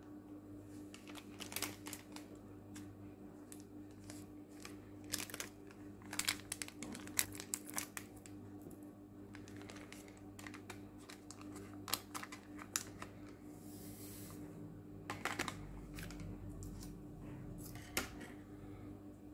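Foil coffee sachet crinkling and tearing as it is opened and emptied into a ceramic mug, with scattered small clicks and rustles, over a steady low hum.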